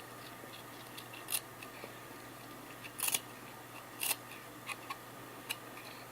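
Trading cards being pried apart and flicked through by hand, giving a handful of short papery snaps and slides. The cards in the pack are stuck together.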